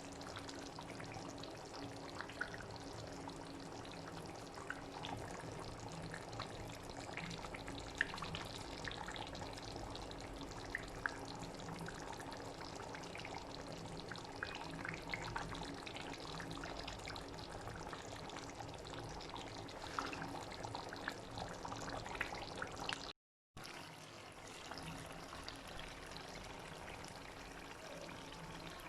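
A pot of food boiling, with steady watery bubbling and scattered small pops. The sound cuts out for a moment a few seconds before the end.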